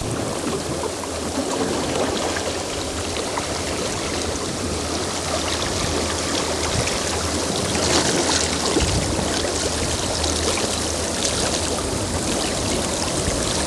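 Swift current of the Fraser River rushing and gurgling past the boat, a steady water noise with a low rumble underneath.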